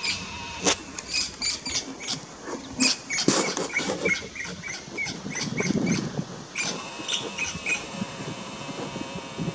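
A bird calling in runs of short, sharp chirps, about four a second, over rustling and a few clicks from movement in dry grass.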